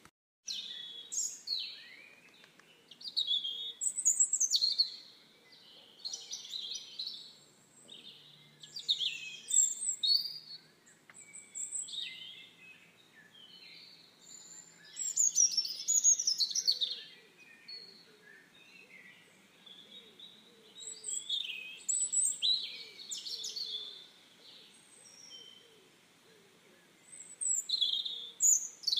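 Songbirds singing outdoors: many quick, high chirping and warbling phrases that come in bursts every second or two.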